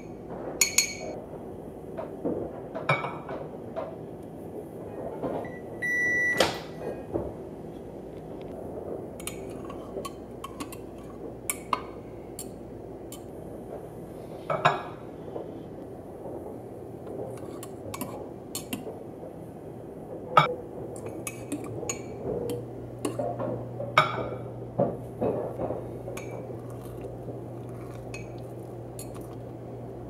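A metal fork and spoon clinking and scraping against a ceramic mug while eggs are beaten and stirred. A short electronic beep sounds about six seconds in. From about twenty seconds in, a microwave oven's steady low hum runs under the clinks.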